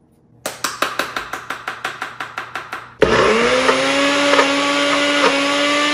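A salt grinder twisted in quick ratcheting clicks, about six a second. About three seconds in, a NutriBullet personal blender's motor starts and runs with a steady whine. There is too little in the cup for it to blend properly.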